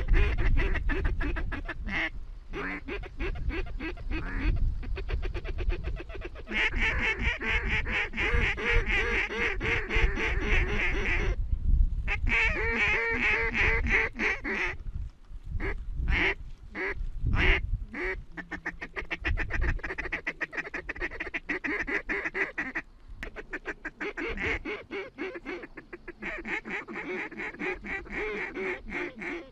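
A large flock of wild waterfowl calling in flight: many birds calling at once in a dense, overlapping chorus, broken a few times by sudden short gaps.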